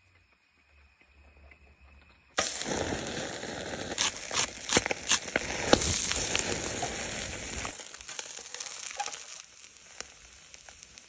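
Food sizzling and crackling on a wire grill over hot charcoal, with many sharp pops. It starts suddenly a couple of seconds in and dies down near the end.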